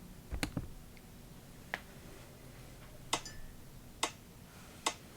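A handful of short, sharp clicks, about seven in five seconds at uneven intervals, over quiet room tone with a faint low hum.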